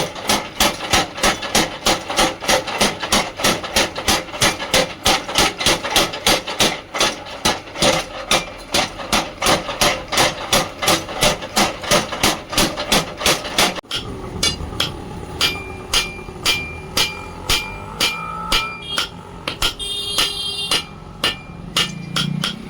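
Blacksmith's hammer striking metal on an anvil in a steady rhythm of about three blows a second. About two-thirds of the way through the rhythm changes abruptly to slower blows of about two a second, each with a clear ringing tone.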